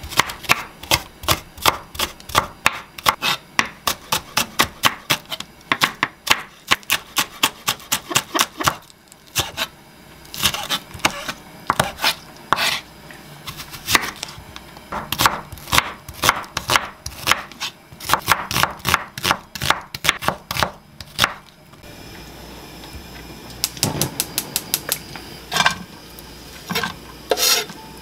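Chef's knife chopping a Korean leek and then an onion on a wooden cutting board: quick, regular knife strikes about four a second, in runs with short pauses. After about twenty seconds the chopping stops and a steady faint hiss sets in, broken by a few quick knife taps.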